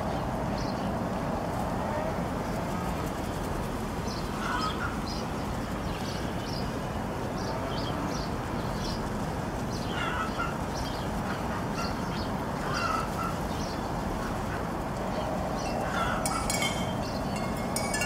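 Short bird calls every few seconds over a steady rushing noise.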